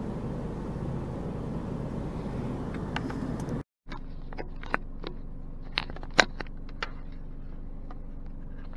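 Steady low hum inside a car. After a brief cut, a quieter hum carries scattered clicks and taps, the loudest about six seconds in, as fingers handle the dash camera.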